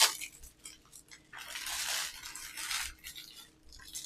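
A Blu-ray case and its packaging being handled: a click, then a rasping, tearing rustle lasting about a second and a half, followed by a few small clicks.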